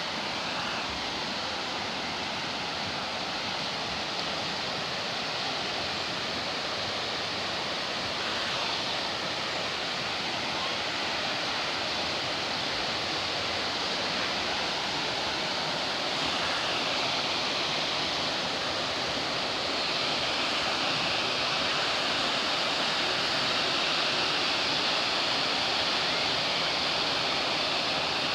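Fast-flowing canyon river rushing and splashing over rocks, a steady hiss of white water that grows slightly louder in the second half.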